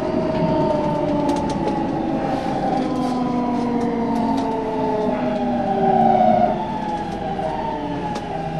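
Keikyu electric train pulling away and accelerating: the motor inverter whines in several overlapping tones that slowly shift in pitch, over the rumble of the wheels on the rails.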